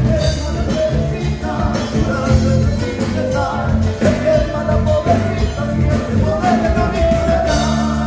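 Live folk band playing: a man singing into a microphone over acoustic guitar, violin and bass guitar, with regular percussive hits, settling into a held chord near the end.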